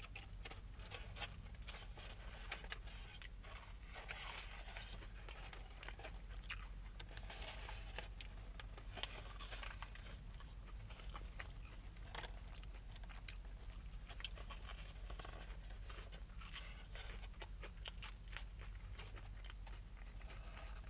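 A person biting and chewing a pie with a crunchy, sugar-coated crust: faint, irregular crunches and mouth sounds close to the microphone, over a steady low hum.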